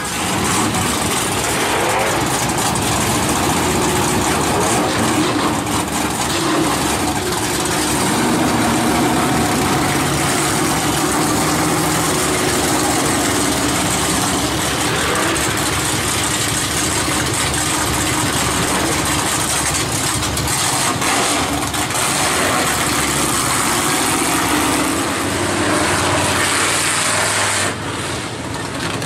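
Dirt-track race car engines running and revving, the pitch rising and falling as the cars pull out and circle the track on a first warm-up run.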